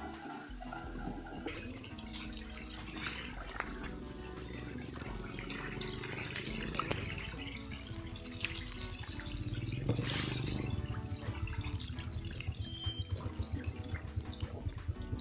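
A dense school of young pangasius (striped catfish) splashing and churning at the water surface as they feed, a continuous patter of small splashes. A low motor hum comes in after about nine seconds.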